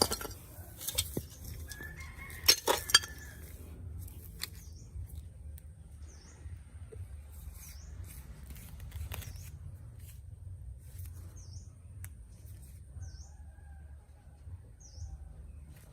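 A few sharp clinks of small hard parts or tools in the first three seconds. Then faint, short bird chirps repeat about every second and a half over a steady low hum.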